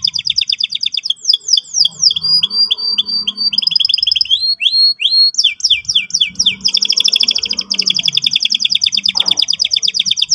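Canary singing a fast, continuous song of high trills. Long even rolls open it, quicker varied chirps and rising notes come in the middle, and a long roll returns for the second half. It is the 'ngerol' (rolling) and 'ngeriwik' (rapid chatter) song used as a lure for training young canaries.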